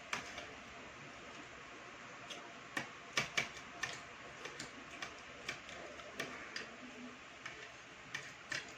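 Eating sounds at a meal table: a dozen or so light, sharp clicks and taps at an irregular pace, like utensils against plates and mouth sounds.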